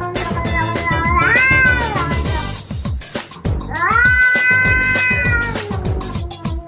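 A cat yowling in two long drawn-out meows: the first, about a second in, rises then falls; the second, held steady, starts near four seconds in. Background music with a steady beat runs underneath.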